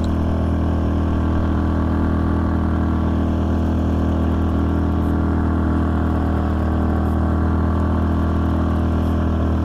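Small outboard motor on an inflatable PVC boat running at a steady, unchanging speed as the boat moves.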